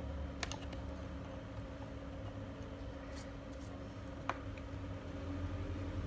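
A few sharp clicks and taps from a printer circuit board being handled and set down on a wooden workbench, the strongest a little after four seconds, over a steady low hum.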